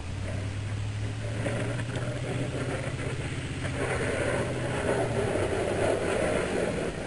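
1997 Chevrolet 2500 plow truck approaching, its engine a steady low hum that gives way about four seconds in to a louder rushing noise as the truck comes closer.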